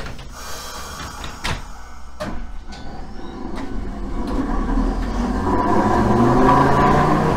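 The doors of Hankai Tramway car 162, a tram built in 1928, close with a few sharp knocks in the first two seconds. The tram then pulls away, its motors and wheels growing steadily louder as it gathers speed past.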